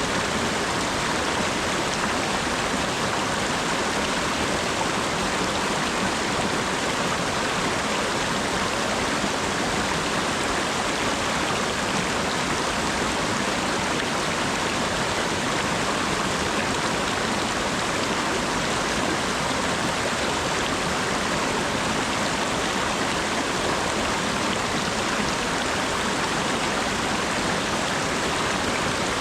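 Steady rain falling, a dense, even hiss that never changes in level.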